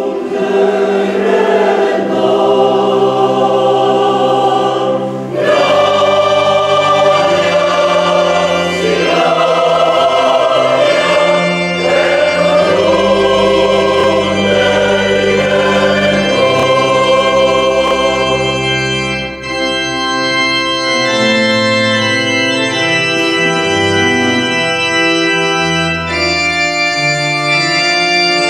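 A mixed choir sings a Christmas piece with electronic keyboard accompaniment in an organ sound. About two-thirds of the way through, the voices stop and the keyboard plays on alone in steady, held chords.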